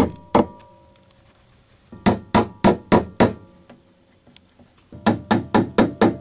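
Claw hammer driving the nails of plastic clips into a wooden ceiling joist to hold a water line. Quick sharp blows about four a second in three runs: two at the start, about six a little after two seconds in and about six more from about five seconds in, each with a short metallic ring.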